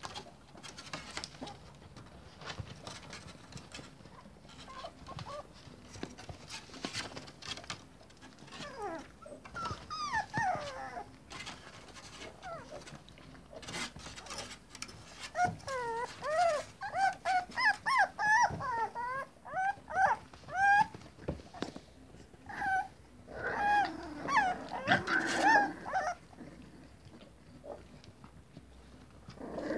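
Several five-week-old puppies whining and yelping in short, high, wavering cries. The cries come in bursts that get busier in the middle and near the end, with scattered light clicks and scuffles in between.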